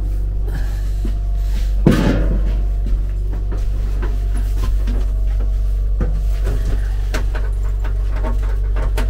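Metal fittings being handled in a passenger-train toilet compartment over a steady low hum: a clatter about two seconds in, then a series of small clicks and knocks in the last few seconds.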